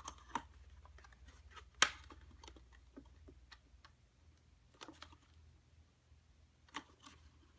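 Faint handling of cardstock: fingers pressing glued paper tabs down, with scattered light taps and crinkles and one sharper click about two seconds in.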